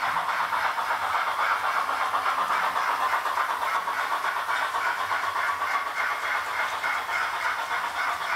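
Digital sound decoder in a Roco HO-scale steam locomotive playing steam chuffing through the model's small onboard loudspeaker, in quick, even beats with a hiss over them as the locomotive runs.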